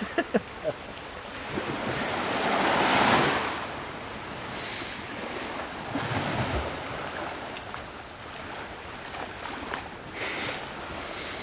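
Wind buffeting the microphone over a steady wash of sea, with a few sharp clicks in the first second, a swell of rushing noise about two to three seconds in, and a brief low rumble about six seconds in.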